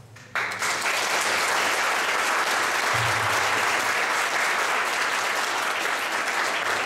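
Audience applauding, starting abruptly and holding at a steady level for about six and a half seconds.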